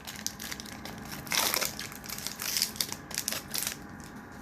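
Foil wrapper of a Pokémon card booster pack crinkling and tearing as it is opened by hand, in several rustling bursts, the loudest about one and a half seconds in.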